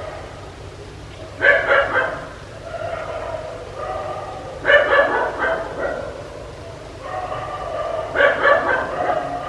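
A dog barking in three bursts of several quick barks each, roughly three seconds apart, with softer sustained sounds between the bursts.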